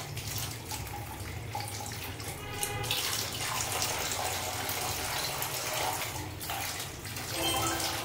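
Running water splashing steadily while budgerigars are given a bath.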